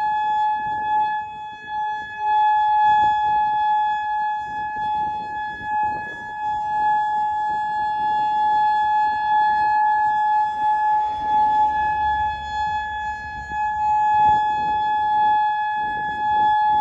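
Outdoor tornado warning siren sounding a loud, steady tone at one held pitch.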